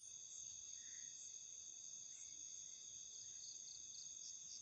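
Night insects, crickets among them, chirring steadily in several high pitches at once.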